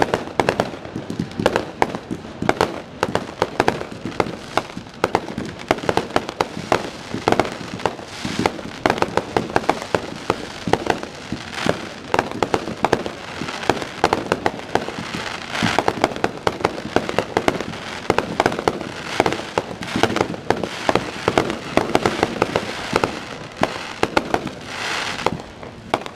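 Aerial fireworks shells bursting in quick succession: a dense run of bangs, pops and crackling that goes on without a break.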